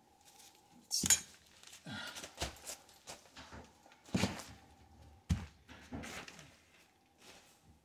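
Several knocks and thunks with rustling between them, the loudest about a second in. This is the tub drain and overflow assembly and its plastic pipe being handled and pushed back up into place.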